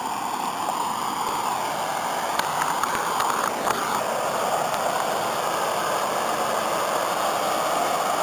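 Flash-flood water rushing over grass and pouring down a small waterfall: a steady, even rush, with a few faint clicks about three seconds in.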